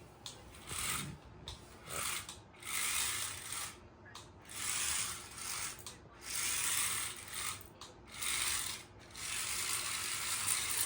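Small geared motors of a remote-control toy robot whirring in short bursts, about one a second, then running steadily near the end.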